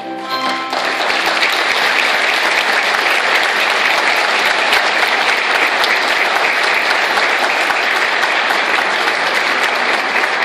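A theatre audience applauding steadily. The choir's last sung chord fades out about a second in, as the clapping swells.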